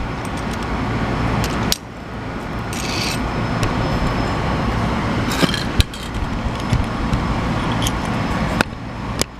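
Steady low rumble and hiss in the background, with a few sharp clicks and knocks, such as pieces of steel plate being picked up and handled.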